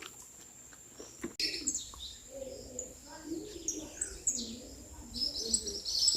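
Birdsong: high, quick chirps and twitters starting about a second in and growing busiest near the end, with a lower, warbling call underneath from about two seconds in.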